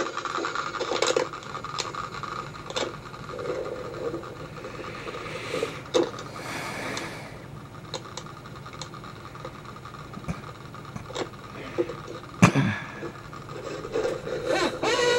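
Rubbing and scraping noises with scattered light clicks, and one louder knock about twelve seconds in.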